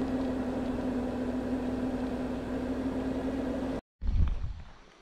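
Honda Africa Twin motorcycle engine running at a steady, unchanging pitch under road and wind noise while riding down a wet hill. Near the end the sound cuts off abruptly, followed by a brief low thump.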